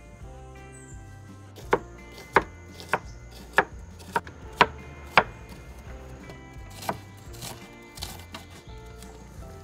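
Kitchen knife chopping garlic cloves, then green chillies, on a wooden cutting board. About seven sharp, evenly spaced cuts come roughly every half second from about a second and a half in, followed by a few lighter cuts.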